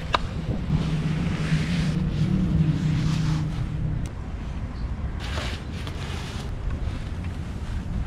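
Wind buffeting the microphone, with gusts swelling about a second in and again past the middle. A low steady hum runs under it through the first half, and a sharp click sounds right at the start.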